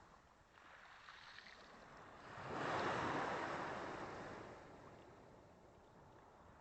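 Black Sea wave breaking and washing up the beach: a surge of rushing water that swells about two seconds in, peaks, then fades away over a couple of seconds.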